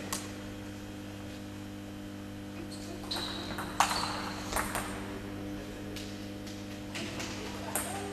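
A few sharp clicks of a table tennis ball on bats and table, the loudest about four seconds in, over a steady low hum.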